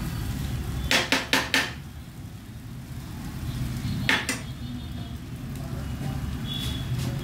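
A steel spatula clinking against a steel cooking pan: four quick taps about a second in, then one more clank about four seconds in, over a steady low hum.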